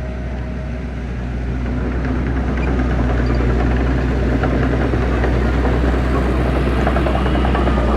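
Diesel engine of heavy earthmoving machinery running with a steady low drone, growing louder from about a second in.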